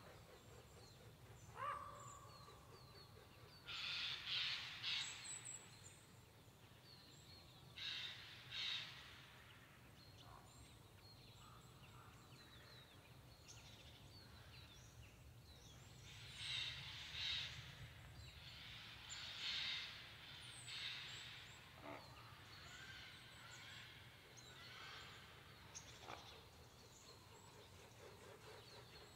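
Crows cawing in the distance in about four bouts of harsh calls, with faint chirps of small birds between them, over a steady low hum of background noise in a pine forest.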